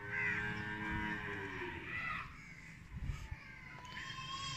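A cow mooing: one long low call of about two seconds that sags in pitch as it ends.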